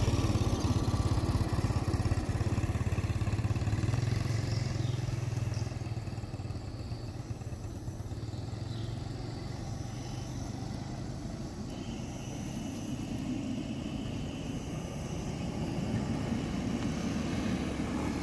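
Low rumble of an Airbus A330-243's Rolls-Royce Trent 700 jet engines at takeoff power, heard from far off and fading as the airliner climbs away. Near the end a motor scooter engine grows louder.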